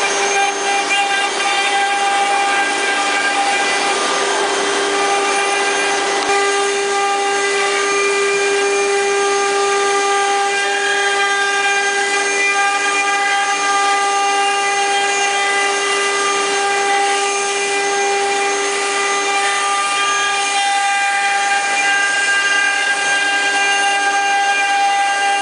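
Multi-spindle four-axis CNC wood carving machine running: its router spindles give a steady, unbroken whine while the bits cut wood.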